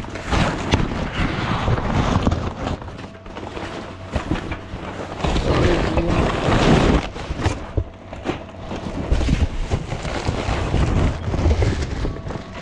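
Cardboard parcel box being handled and torn open close to the microphone: irregular crackling, scraping and rustling of cardboard with small knocks.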